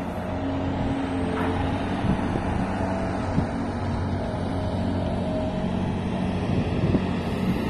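A diesel engine running steadily at one constant pitch, a low drone over a rough, noisy background.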